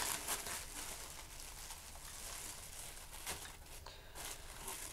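Quiet rustling and crinkling of paper packaging as a small taped parcel is opened by hand, with a couple of brief sharper crackles about three and four seconds in.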